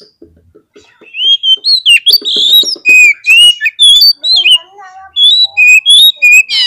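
Oriental magpie-robin (kacer) singing loud, varied whistled phrases with sliding notes and harsh, rasping stretches, starting about a second in after faint soft ticking. It is a fired-up, aggressive song of the kind played to provoke other magpie-robins.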